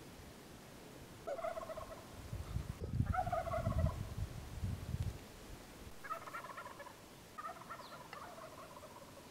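A Merriam's wild turkey gobbler gobbling four times, in two pairs of short rattling calls. A low rumble, the loudest sound, runs under the second gobble from about the second to the fifth second.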